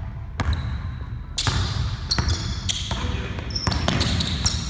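Basketball dribbled hard on a hardwood gym floor: a run of irregular bounces ringing in the large hall, with short high sneaker squeaks as the players cut.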